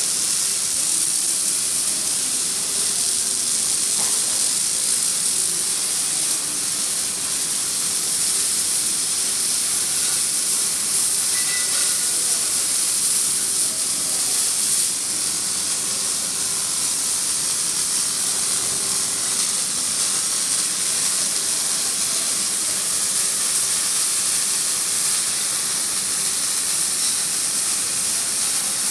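Robotic wire-feed (MIG) welding arc hissing steadily as the robot arm runs a weld on a steel frame.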